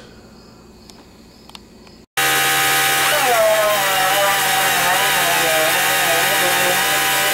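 Pneumatic dual-action orbital sander running on a steel car hood, starting abruptly about two seconds in after quiet room tone. A loud, steady hissing whir with a high whine that wavers in pitch.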